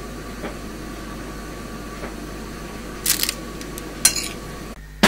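Soft kitchen handling: a spoon working filling into mushroom caps, with two short rustles of the foil tray lining about three and four seconds in as the stuffed caps are set down. A faint steady hum underneath.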